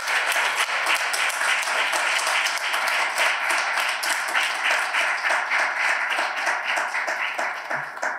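Audience applauding: dense, steady clapping from many hands that dies away at the very end.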